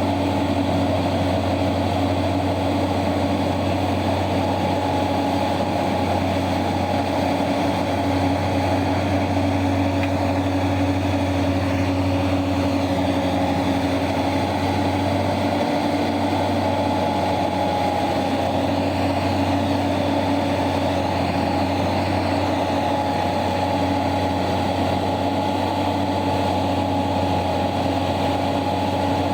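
Large diesel mining machinery running steadily: a constant engine drone with a steady whine above it, no loud impacts.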